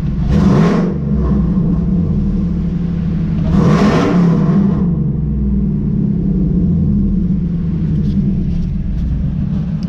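Supercharged 5.4-litre V8 of a 2003 Ford F-150 SVT Lightning, heard from the cab, idling and revved twice: a short blip about half a second in and a longer rev from about three and a half to five seconds in, each settling back to idle. The exhaust is a little raucous.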